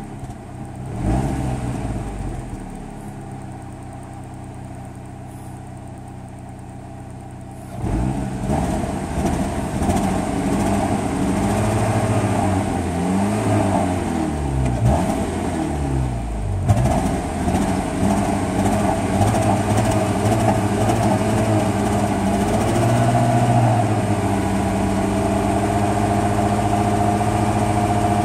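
Pontiac Sunfire's 2.2 L Ecotec four-cylinder engine running. It idles low for about eight seconds, then is revved, its pitch rising and falling several times before it holds steady at a higher speed. The engine has a misfiring, hard-starting problem, which the owner traced to sugar in the gas tank.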